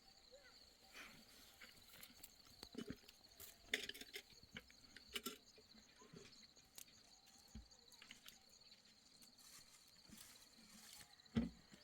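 Near silence, broken by a few faint, irregular clicks and knocks.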